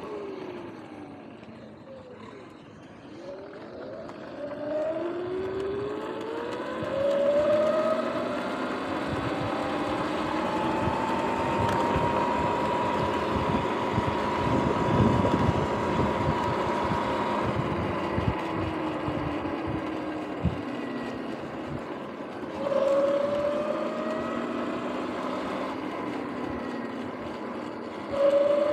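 Sur-Ron X electric dirt bike's motor and drivetrain whining, its pitch falling as the bike slows in the first couple of seconds, then rising as it accelerates, holding steady at cruising speed through the middle, and rising again twice with more throttle. Road and wind noise run underneath.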